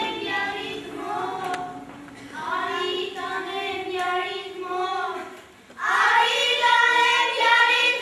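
Young girls' voices singing a melody in long held notes, louder from about six seconds in.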